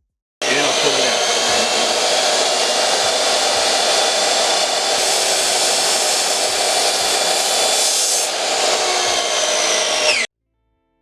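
Electric power tool motor running flat out with a steady high whine for about ten seconds, its pitch sagging slightly just before it cuts off.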